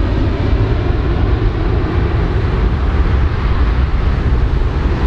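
Four-engined jet airliner flying away, its jet engines giving a loud, steady, deep rumble.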